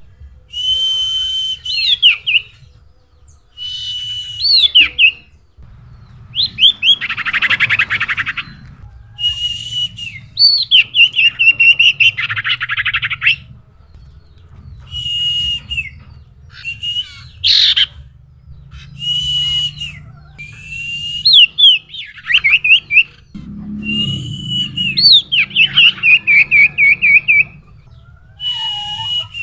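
Common iora (cipoh) singing: repeated phrases of a held whistle followed by quick rising-and-falling notes, every two to three seconds, with a few harsh buzzy rattles mixed in.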